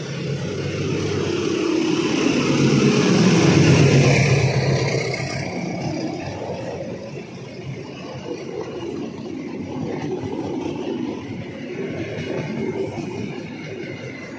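Train passing close by: it builds to a loud peak about three to four seconds in with a falling pitch as it goes past, then continues as a steady rumble of cars rolling along the track.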